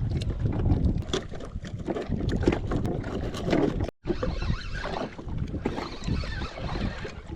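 Wind buffeting the microphone over water slapping and knocking against a jet ski hull at anchor, with scattered small knocks. The sound cuts out for an instant about four seconds in.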